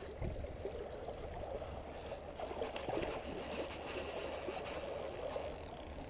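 Creek water flowing and babbling steadily.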